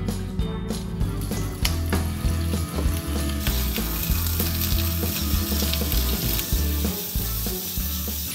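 Pork belly pieces sizzling as they fry in hot olive oil in a deep nonstick pan, stirred with chopsticks. The sizzle grows louder and fuller about three and a half seconds in, once the meat is in the oil.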